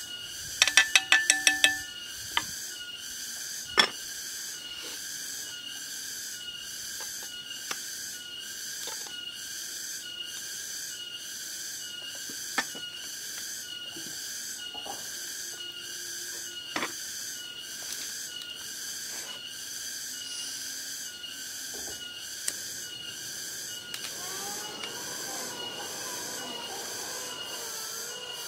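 Metal clinks and rattles from a blackened cooking pot's wire handle and lid about a second in, then occasional light knocks as the pot and gas stove are handled. Throughout, a steady high chorus of insects pulses about once a second.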